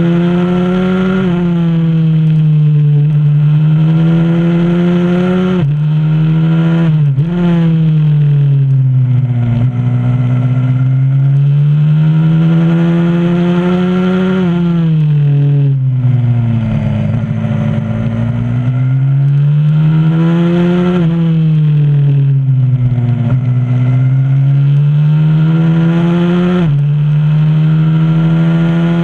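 A 125cc supermoto pit bike's single-cylinder four-stroke engine, recorded onboard at speed. The pitch climbs as it accelerates and falls as it backs off for corners, with quick drops at the gear changes.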